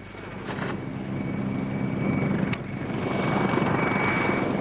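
Mi-24 Hind attack helicopter in flight: steady rotor and turbine noise with a constant high whine, growing louder over the first couple of seconds.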